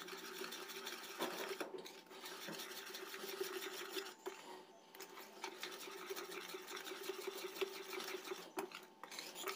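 A fork beating thick semolina-and-flour batter in a ceramic plate: quick, steady scraping and clicking of the tines against the plate, stopping briefly a few times.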